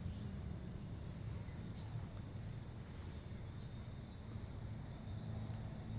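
Night insects chirping: a steady, high, fast-pulsing trill, with a second fainter high-pitched insect, over a faint low rumble.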